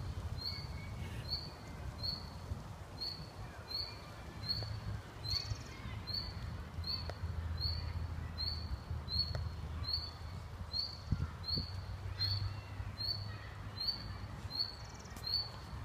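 A bird repeating one short high note over and over at an even pace, about three notes every two seconds, with fainter chirps behind it. A low rumble of wind on the microphone runs underneath.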